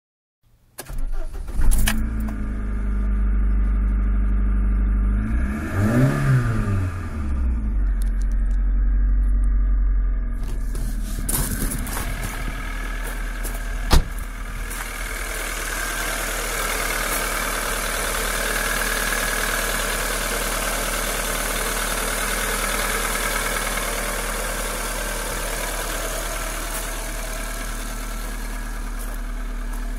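Ford Escort RS 1.8i 16-valve four-cylinder engine starting about a second in, revved once briefly, then idling steadily. Partway through it is heard from the open engine bay, with a single sharp click.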